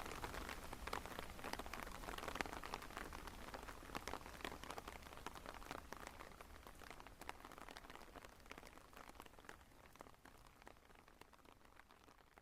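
Rain pattering, a dense run of small drop ticks over a soft hiss, fading steadily until it is almost gone near the end.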